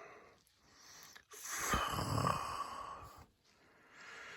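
A man breathing out heavily once, about a second and a half in, with a faint hum of voice in the breath and a fainter breath near the end.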